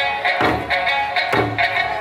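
Eisa drum-dance music: a steady melody over taiko drums struck together roughly once a second.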